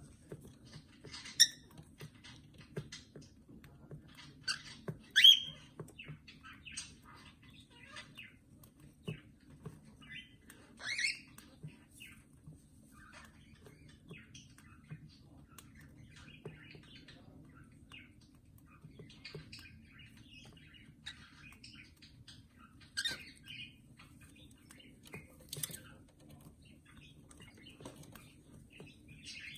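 Birds chirping on and off, with short sharp calls and small clicks scattered through, a few louder calls standing out, over a steady low hum.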